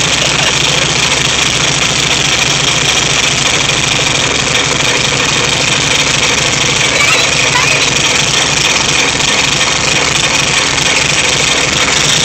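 Freshly rebuilt VW Type 3 1600 cc single-port air-cooled flat-four engine running steadily, on its first run after the rebuild.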